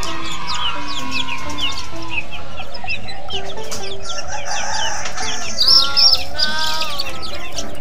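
Chickens clucking and calling, with many short high chirps and a louder run of calls about six seconds in, over background music.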